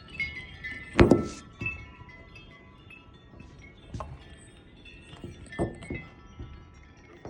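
Metal wind chime being struck by gusting wind, several notes ringing and overlapping. A loud knock about a second in and a few softer thumps later.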